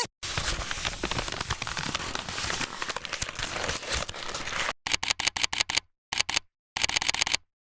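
Sound-effect clicking: a dense, crackly run of rapid clicks for about four and a half seconds. Then come three short groups of separate sharp clicks, about nine in the first group, two in the second and several in the third, with brief silences between.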